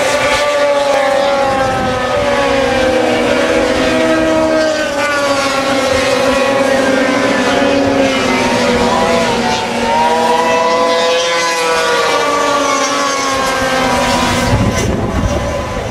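Several 500-class racing snowmobiles running at full throttle, their engine notes overlapping and rising and falling in pitch as they come past; the pitch dips about ten seconds in and climbs again, with a louder low rumble near the end.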